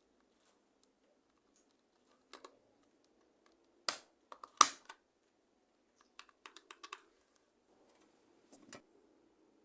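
Keys being pressed on a mechanical keyboard: scattered clicks, with the loudest about halfway through and a quick run of about five soon after.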